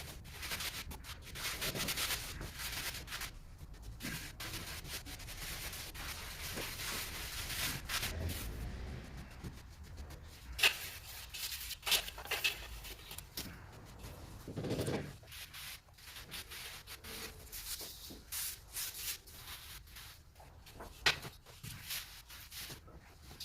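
Irregular scraping and rubbing of a trowel working mortar on a floor, with a few sharp knocks.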